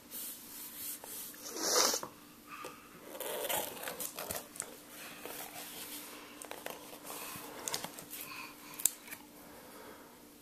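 A horse blows a short, breathy snort through its nostrils about two seconds in, followed by soft rustling and crinkling.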